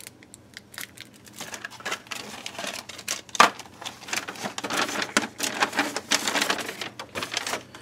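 Product packages being handled and rummaged through: irregular plastic and cardboard rustling with quick taps and clicks, and one sharp knock about three and a half seconds in.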